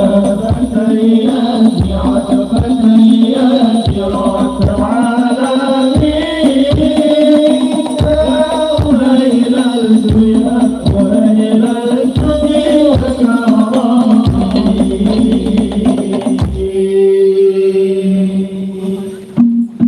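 Sholawat singing with a hadrah group's frame drums and a steady deep drum beat, played very loud through a large outdoor PA system. About three-quarters of the way in, the drums drop out for a single held note that cuts off suddenly near the end.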